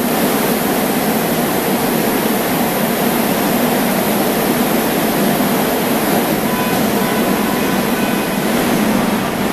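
Daejeon Metro Line 1 electric train standing at an underground platform, its equipment giving a steady, loud hum and hiss. Its doors and the platform screen doors close in the second half, with faint short warning tones as they shut, before it departs.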